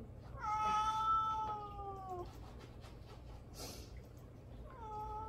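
Munchkin cat meowing for attention: one long, drawn-out meow that holds its pitch and then drops at the end. A second meow starts near the end.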